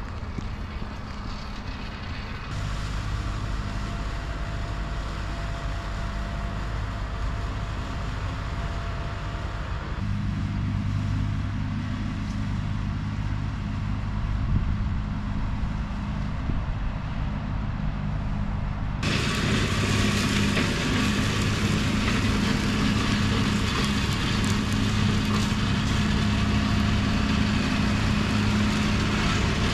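Tractor engine running at steady revs with a boom-arm mower, a steady drone that grows louder. About two-thirds of the way in, a loud rushing noise joins it.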